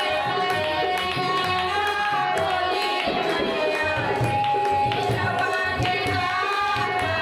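Live devotional bhajan music: hand drums of the tabla kind keep a steady rhythm under a melody of long held notes, with some singing.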